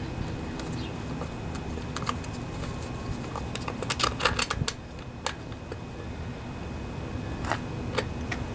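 Small metallic clicks and clinks of a wrench and metal parts as the carburetor's mounting nuts are run down, bunched in a few quick runs partway through, over a steady low hum.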